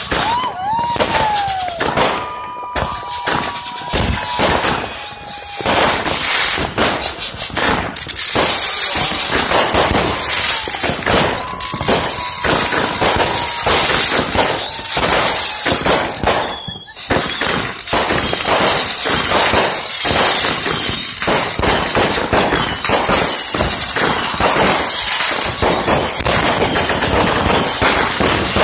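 Consumer aerial fireworks going off in quick succession: a few whistling tones in the first seconds over popping, then dense continuous crackling and popping of bursts, with one short lull midway.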